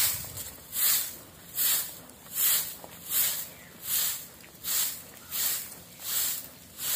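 Hand broom of long grass stalks sweeping dusty bare-earth ground: a regular swish with each stroke, about one stroke every three-quarters of a second.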